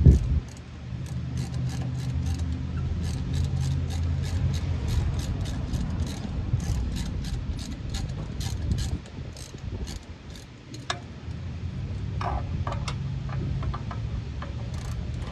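Socket ratchet clicking in quick runs as the handle is swung back and forth, loosening a 14 mm bolt. A loud knock right at the start, and the clicks thin out in the second half, over a steady low hum.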